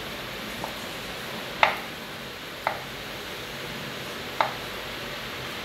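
Kitchen knife cutting through a banana and knocking on a wooden cutting board: a faint tap, then three sharp knocks spaced unevenly a second or more apart, over a steady hiss.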